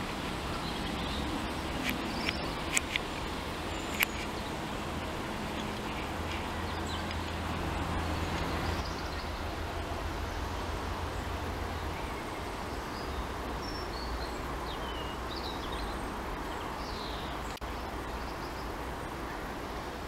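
Outdoor riverside ambience: a steady wind rush on the microphone, with a low rumble for several seconds midway. A few sharp clicks sound in the first four seconds, and small high bird chirps come near the end.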